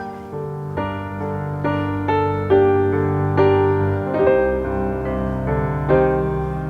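Background music: a slow piano melody, its notes struck a little more often than once a second and left to ring over a steady low bass.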